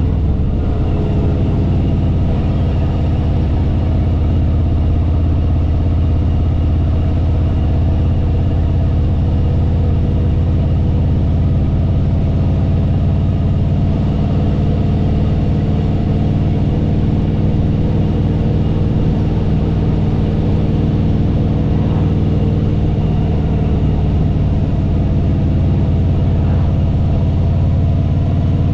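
Harley-Davidson Fat Boy Lo's V-twin engine and exhaust running steadily while cruising down the road at an even speed.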